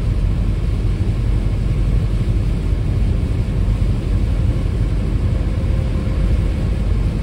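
Steady low rumble of a car driving at speed on a rain-soaked expressway, heard inside the cabin: road noise and tyres on wet pavement.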